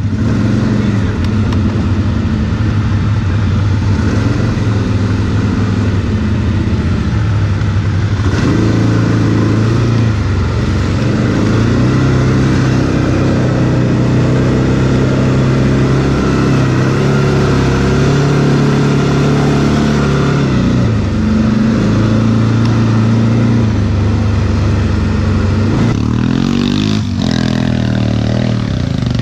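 Quad (ATV) engine running hard under way, its pitch shifting up and down with the throttle, with a brief drop and climb again near the end.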